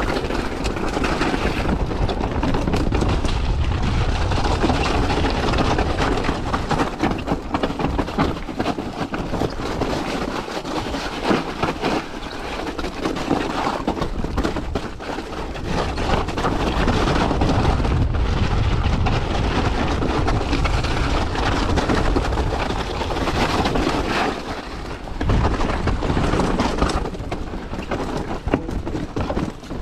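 Mountain bike descending a rocky trail: tyres rumbling and clattering over loose stones and gravel, with many small knocks from the bike, and wind buffeting the camera microphone as a heavy low rumble.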